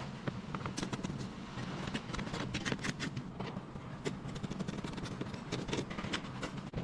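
Workshop noise: a steady low hum with frequent irregular taps and clicks.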